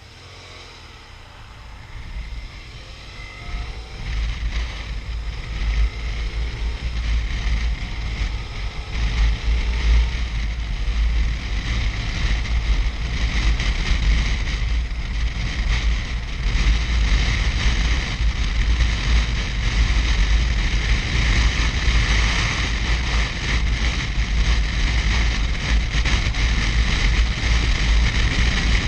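Wind rushing and buffeting over the microphone of a motorcycle under way, a deep rumble with hiss above it. It grows louder over roughly the first ten seconds and then stays steady and loud.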